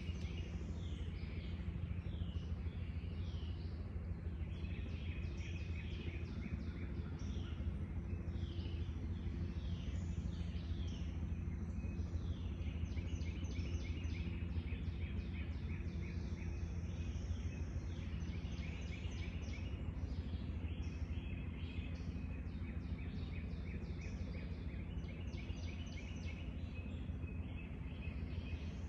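Several songbirds singing and calling in a spring woodland, with short chirps and trilled phrases overlapping throughout. Under them runs a steady low hum.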